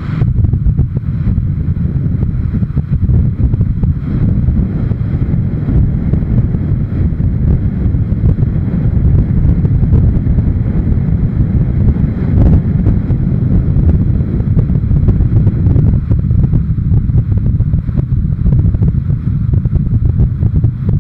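Wind buffeting the microphone of a camera on a motorcycle moving at road speed: a loud, steady low rumble, with the bike's running noise mixed in.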